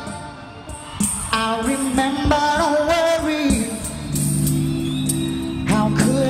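Live rock band playing: held synthesizer chords and sharp drum hits under a wordless vocal line that slides in pitch.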